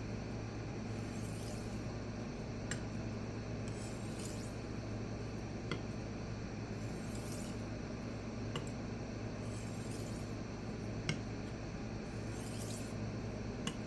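Knife edge being deburred by hand on a small resin bonded diamond pocket stone: light, faint scraping strokes every few seconds, each pass marked by a short sharp click about every three seconds, over a steady low hum.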